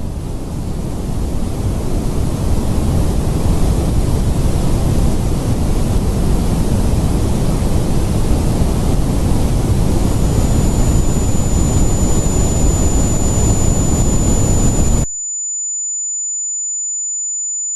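Loud rumbling noise effect that swells and holds. A single high-pitched steady tone joins about ten seconds in. About five seconds later the rumble cuts off abruptly, leaving only the high ringing tone, the ear-ringing effect that follows a blast.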